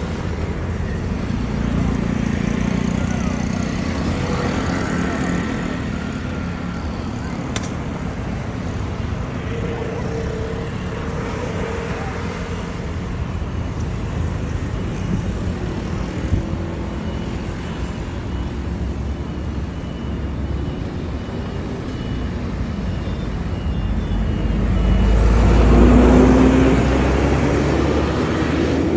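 Street traffic: cars and other vehicles running steadily, with one vehicle passing close near the end, the loudest moment.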